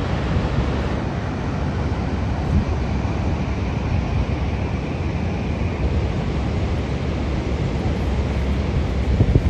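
Steady rushing roar of Niagara Falls' falling water, with wind rumbling on the microphone.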